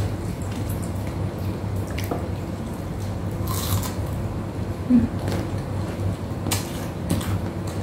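Close-up eating sounds: fingers pulling apart crispy deep-fried tilapia and mouths chewing, with scattered crackles and wet smacks over a steady low hum. A short knock about five seconds in is the loudest sound.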